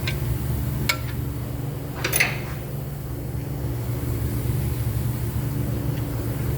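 Steady low machine hum, with a sharp metal click about a second in and a louder ringing metal clink about two seconds in.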